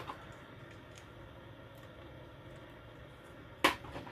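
Hot air rework gun blowing a steady hiss of air onto the ECU circuit board to melt the solder on small resistors so they can be lifted off. There is a sharp tap near the end.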